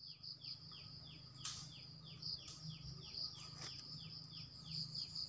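Bamboo-forest ambience of calling insects and birds: a steady high-pitched trill and a short falling chirp repeating about three times a second, over a low rumble, with a few soft clicks.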